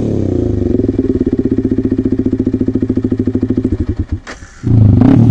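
Yamaha R15's 155 cc single-cylinder engine idling through an aftermarket SC Project exhaust, a steady, rapid pulsing. About four seconds in it drops away briefly, then a louder engine note comes in near the end.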